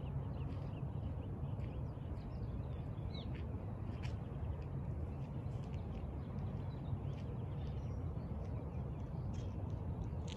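Scattered short bird chirps over a steady low background rumble.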